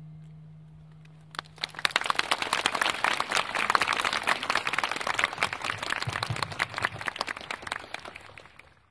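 An acoustic guitar's last note rings out and fades. About a second and a half in, audience applause starts and carries on, dying away near the end.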